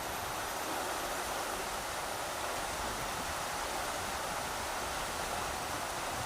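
Rushing river water: a steady, even rush of flowing water with no breaks.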